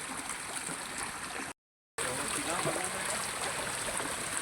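Steady rush of flowing stream water. The sound cuts out completely for about half a second midway, then the water resumes.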